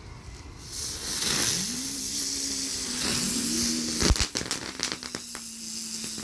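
Two Winda Crackling Ground Bloom Flower fireworks spinning on concrete: a loud hissing spray of sparks starts about a second in, with a low tone that rises and then holds as they whirl. From about four seconds in, sharp crackling pops break out over the hiss.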